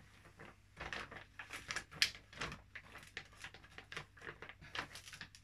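Plastic pouch and packaging being handled: irregular quiet rustles and light clicks, over a steady faint low hum.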